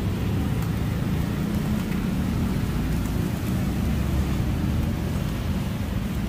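Steady low rumble of street traffic, with vehicle engines running.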